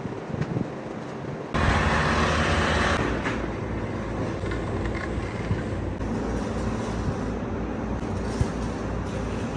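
Heavy diesel engine of a concrete truck running steadily. It comes in suddenly about one and a half seconds in, with a loud rushing hiss over it for the first second or so.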